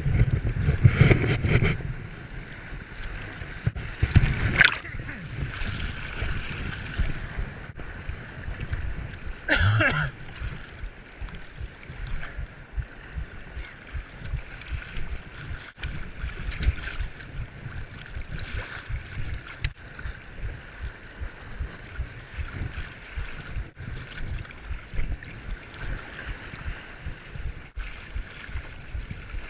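Waves washing and gurgling over the shoreline with wind buffeting the microphone, a steady rushing wash broken by a couple of brief louder surges about four and ten seconds in.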